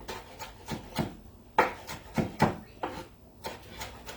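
Knife chopping on a wooden cutting board: a run of separate strokes, about two a second, at uneven spacing.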